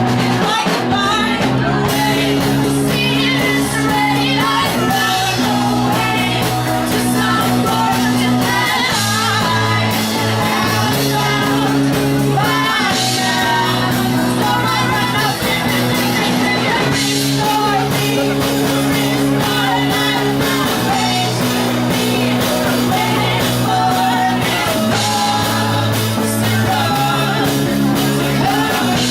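Rock band playing a song live, with a lead singer over sustained bass notes that change every couple of seconds and steady cymbals.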